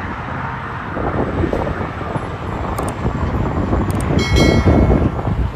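A semi truck hauling a tanker trailer drives past on a highway: steady engine and tyre noise, loudest about four to five seconds in.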